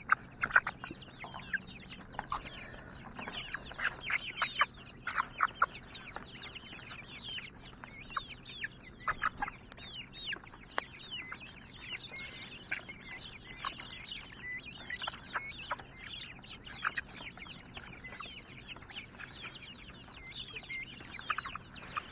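A flock of chickens clucking, with many short, high calls in quick succession.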